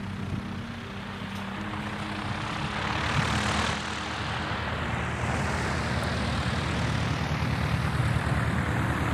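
Single-engine propeller light aircraft rolling along the runway, its engine and propeller running with a steady drone that grows louder as it comes closer.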